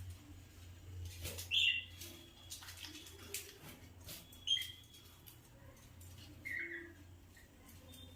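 Birds giving short chirps, three spaced a couple of seconds apart, with scattered faint clicks over a steady low hum.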